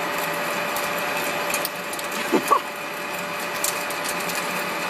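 Metal lathe running with a tool cutting across the face of a large spinning metal disc: a steady machine hum with scattered sharp ticks. About halfway through there is a brief rising whine.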